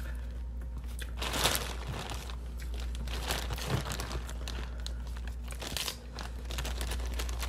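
Clear plastic food bag crinkling and rustling as hands rummage in it, in several uneven bursts, the loudest about a second and a half in, over a low steady hum.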